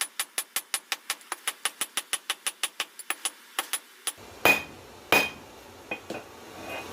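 Blacksmith's hammer striking steel on an anvil: quick, even blows with a ringing clang, about five a second. About four seconds in they give way to two heavier strikes about half a second apart and a lighter knock.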